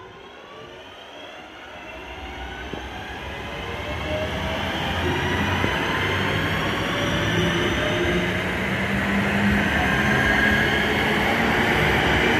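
Two coupled Class 323 electric multiple units coming into the platform and running alongside. They grow steadily louder over the first five seconds, with a whine of thin pitched tones over the rumble of wheels on rail.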